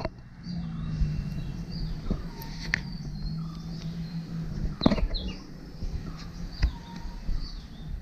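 Birds chirping, with a few sharp clicks and knocks from handling the motorcycle's clutch lever and cable, the loudest about five seconds in. A low steady hum runs through the first half.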